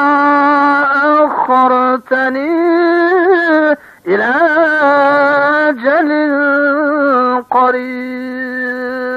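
A solo voice chanting Quranic recitation unaccompanied, with long held notes and ornamented, wavering runs between them. It breaks off briefly for breaths about 2, 4 and 7.5 seconds in, then settles on a final long held note.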